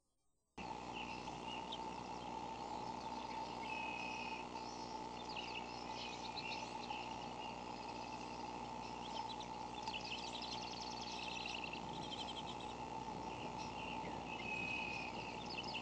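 A steady hum and hiss, with high bird chirps, quick trills and a few short held whistled notes over it. It begins sharply about half a second in.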